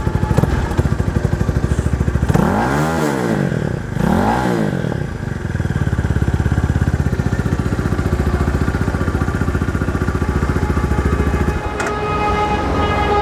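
Skyline 200cc single-cylinder motorcycle engine idling through its stock exhaust. It is revved twice in quick succession a few seconds in, the pitch rising and falling each time, then settles back to idle. A steady pitched tone joins near the end.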